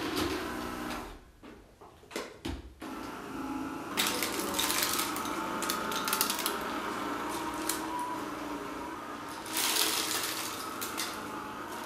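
Kärcher K 55 cordless electric broom running, its motor-driven rotating brushes whirring steadily. After a brief dip, a crackling rattle comes in as it sweeps up crumbs from a rug, from about four seconds in and again near the end.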